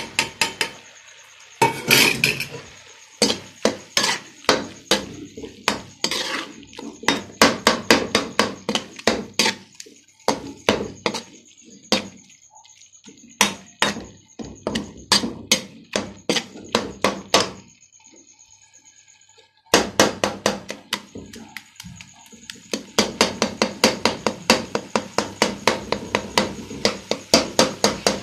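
A steel spoon knocking and scraping against a steel cooking pan while mince is stirred: rapid repeated clanks, a few a second. They pause briefly about two-thirds through, then resume faster.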